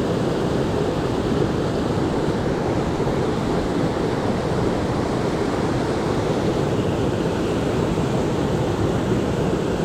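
Fast-flowing river water rushing steadily over rocks, an even, unbroken noise.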